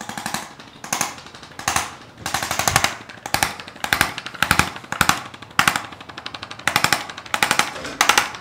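A handheld percussive device rattling in short bursts of very rapid taps, about a dozen bursts, roughly one every half second to second.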